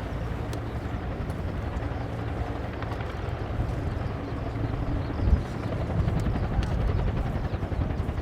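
Military helicopter flying past, its main rotor beating steadily, growing a little louder about halfway through.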